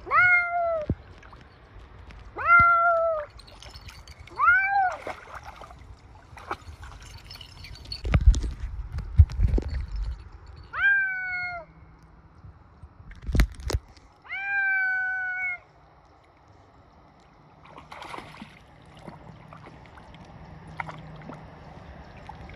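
A cat meowing five times while swimming, each meow drawn out to about a second and arching in pitch, with long gaps between the later ones. A few sharp knocks come in the middle.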